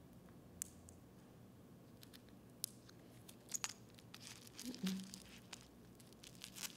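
Faint crinkling and scattered small clicks of bubble wrap and a plastic wiggle eye being handled and pressed onto the bubble wrap, the clicks coming closer together past the middle.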